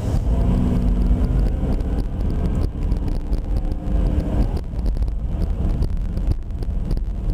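A car driving: steady low road and engine rumble, with wind buffeting the microphone.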